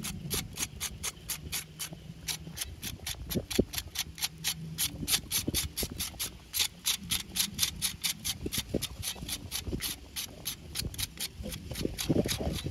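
A knife blade scraping the charred skin off a whole grilled fish on a bamboo skewer, in quick, even rasping strokes about four or five a second.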